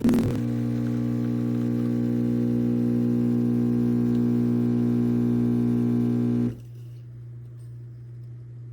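An espresso machine's pump gives a steady, loud electric buzz after a click at the start. It cuts off abruptly about six and a half seconds in, leaving only a faint low hum.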